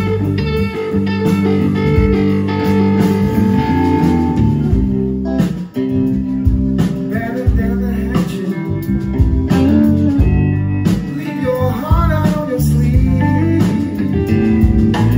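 Live blues band playing: electric guitars over bass guitar and drums, with a momentary break about six seconds in.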